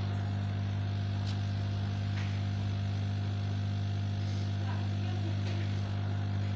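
Hot-air rework station running as it heats up: a steady low electrical hum with a faint airy hiss, and a few light ticks of handling.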